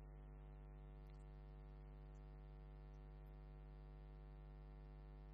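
Near silence: a steady electrical mains hum with its evenly spaced overtones, and no breath plainly heard.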